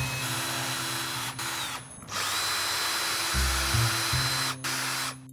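Cordless drill boring pilot holes in a wooden board: two spells of drilling with a steady high whine, the first stopping a little under two seconds in and the second starting just after and cutting off near the end.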